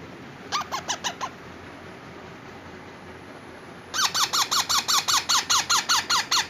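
Indian ringneck parrot chicks calling: a short run of rapid, harsh, falling squawks, then after a pause a longer, louder run of about six calls a second.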